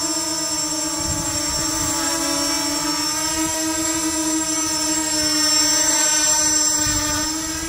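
Custom-built quadcopter's four motors and propellers running in flight: a steady buzzing whine with a high hiss above it. It grows louder about five to six seconds in as the drone passes close and climbs, then eases off near the end.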